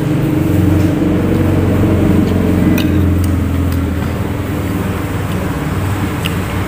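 Road traffic rumbling, swelling over the first few seconds as a heavy vehicle passes, with a few light clicks of a metal spoon on a plate.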